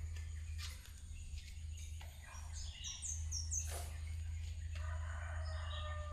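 Birds chirping: a quick run of four high chirps about halfway through, then a lower warbling phrase near the end, over a steady low hum and a few scattered clicks.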